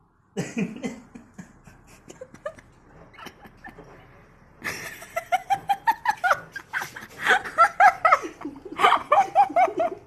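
A person laughing, starting about halfway through and growing into loud, quick repeated ha-has.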